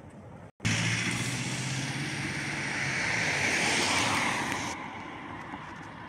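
A car passing close by: tyre and engine noise swelling to a peak about four seconds in, then fading as it drives away. It follows a brief break in the sound near the start.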